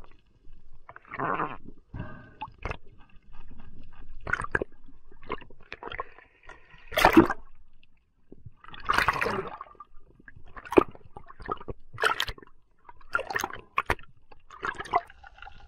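Water sloshing, gurgling and splashing around a swimming diver, heard muffled through an underwater camera housing, in irregular bursts with sharp knocks between them. The loudest splash comes about seven seconds in.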